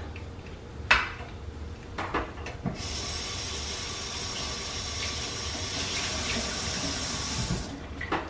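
Water running from a kitchen tap for about five seconds, starting and stopping abruptly, after two short knocks.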